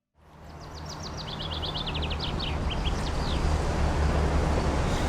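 A small bird chirping a quick run of short high notes that step down in pitch, over a steady low rumble of outdoor background noise fading in.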